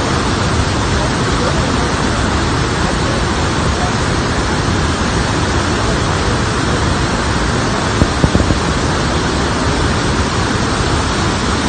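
Floodwater rushing in a steady, loud, even noise that does not let up. A short cluster of clicks sounds about eight seconds in.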